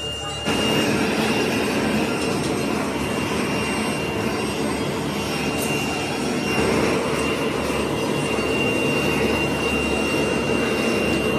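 Gas torch burning steadily, a loud even rush of flame played over sand casting moulds; it comes in abruptly about half a second in.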